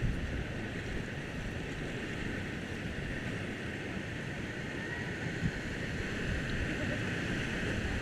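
Steady rush of river water around a raft, with wind buffeting the microphone.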